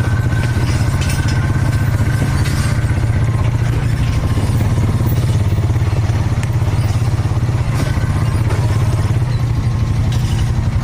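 ATV engine running steadily at an even pitch, with light clattering on top.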